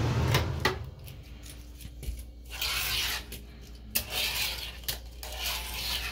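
Fingerboard wheels rolling and scraping across a porcelain bathroom sink in a few short passes, with sharp clacks of the board against the basin.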